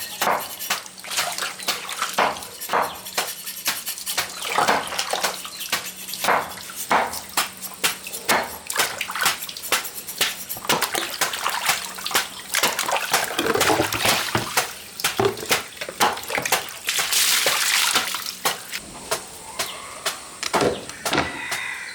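Water sloshing and splashing in many irregular strokes, with a short rushing hiss a little after seventeen seconds in.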